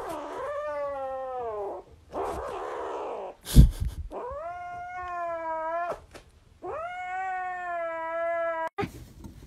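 Grey kitten crying in long, drawn-out meows: three wails of about two seconds each, the first falling in pitch, with a rough, breathy stretch after the first. A single loud thump comes just before the second wail.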